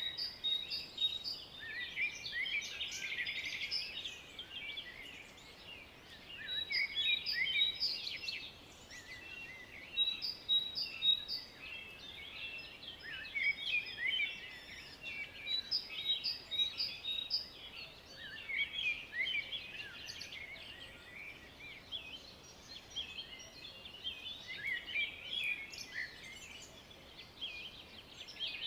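Songbirds singing together, a dense chorus of short high chirps, trills and repeated notes from several birds overlapping without a break.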